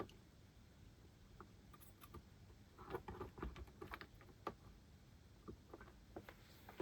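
Faint, scattered small clicks and taps of hands working on a circuit board and its wires, in clusters with near silence between them.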